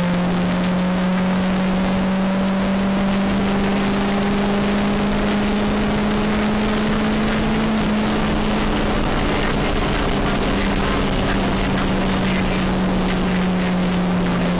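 Car engine droning at a steady, high cruising speed in fourth gear, heard from inside the cabin over a steady hiss of road and wind noise.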